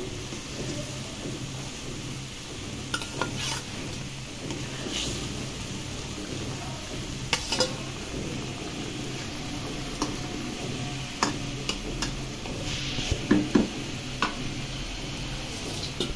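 Thin fish curry broth bubbling at a simmer in an iron karai, with scattered clinks and scrapes of a metal spatula against the pan as hilsa pieces are added and turned in. A cluster of louder knocks comes near the end.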